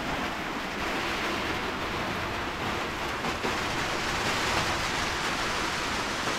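Rain falling in a steady shower, an even hiss with no breaks.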